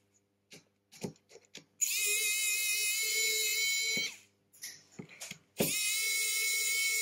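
Cordless precision electric screwdriver turning small phone screws: two runs of high motor whine, each a couple of seconds long, pitch sliding up as the motor spins up and down as it stops. Light clicks and taps of the bit against the phone's parts fall between the runs.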